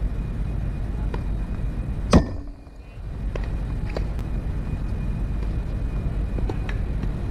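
Tennis balls struck with rackets during a rally on an outdoor hard court: sharp pops every second or so over a steady low rumble, with one much louder hit about two seconds in.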